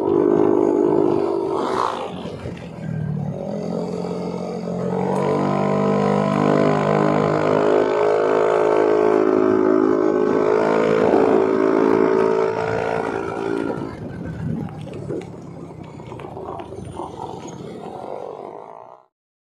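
Yamaha NMAX 155 scooter's single-cylinder engine running under load while riding, holding a steady pitch through the middle, then easing off after about fourteen seconds. The sound cuts off suddenly near the end.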